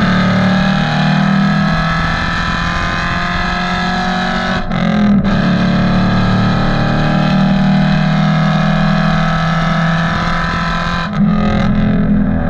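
Ford Mustang GT V8 exhaust under way, a steady loud engine drone. It breaks off briefly about five seconds in and again near the end, like a lift off the throttle for a gear change, then picks up again.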